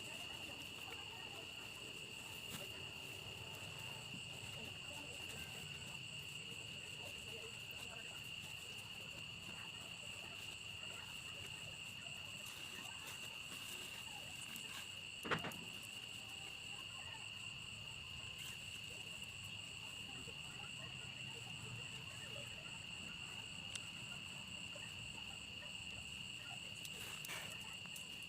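Crickets chirring in a steady high-pitched night chorus, with one sharp click about halfway through.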